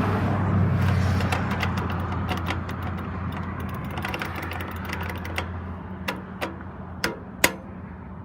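Sharp mechanical clicks of an old McCain crosswalk push button, pressed and worked several times, coming more often in the second half, against the low rumble of road traffic that fades away about six seconds in.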